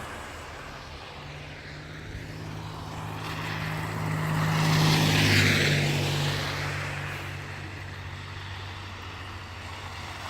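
A vehicle passing: a low, steady engine hum with a hiss of tyres, swelling to loudest about halfway through and then fading away.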